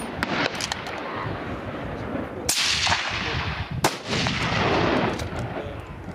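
Two loud hunting-rifle shots about a second and a half apart, each trailing off in a long echo, with fainter sharp cracks between.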